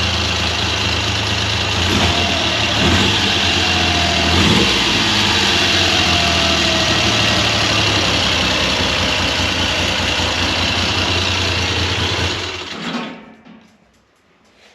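1969 Triumph Trident's three-cylinder engine idling steadily on its own after a head gasket replacement and tune-up. The sound cuts off about thirteen seconds in.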